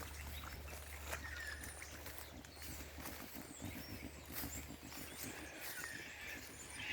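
Faint birdsong by a river: many short chirps and whistled calls from several birds, with soft footsteps on a bush track.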